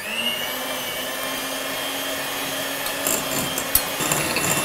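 Handheld electric mixer switched on, its motor spinning up and then running steadily as the beaters cream butter and sugar in a glass bowl. A few sharp clicks sound about three seconds in.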